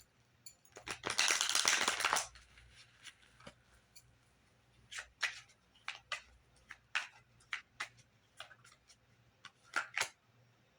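Tarot cards being shuffled: a dense rustle of about a second starting about a second in, followed by scattered light snaps and taps of cards being handled.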